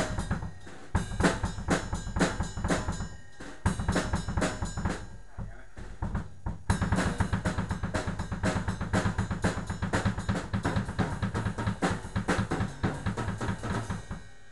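Ludwig drum kit played with sticks: a fast beat on bass drum, snare and cymbals. It pauses about five seconds in, resumes a second later and stops just before the end.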